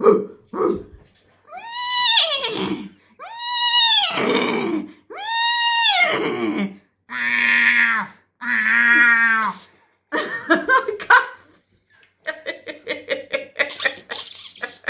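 A woman imitating animal calls with her voice. She makes three long calls that rise and fall in pitch, then two lower, buzzy calls held on one pitch, and breaks into laughter near the end.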